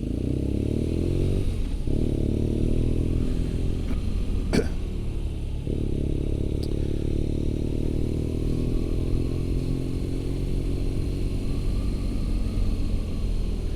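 BMW R nineT's 1170 cc boxer twin pulling away and accelerating: its note rises, drops at a gear change about 2 s in, rises again, drops at a second change near 6 s, then settles into steady cruising. A single sharp click comes about four and a half seconds in.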